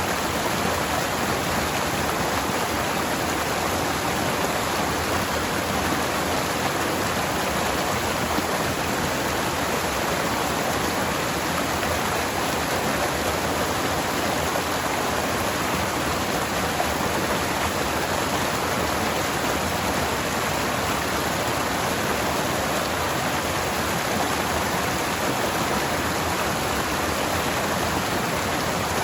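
Forest stream water flowing over rocks: a steady, even rushing that does not change.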